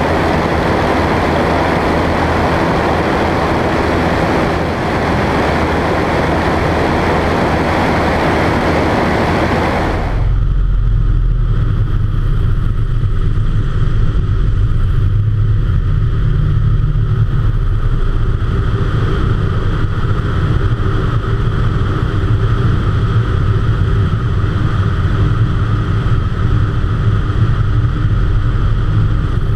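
Floatplane in flight: a steady engine and propeller drone under a loud rush of wind on the microphone. About ten seconds in, the wind hiss drops away suddenly, leaving the low, steady engine drone.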